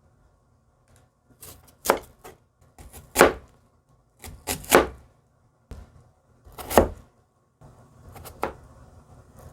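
Kitchen knife cutting food on a cutting board: about half a dozen separate, unhurried chops at irregular spacing.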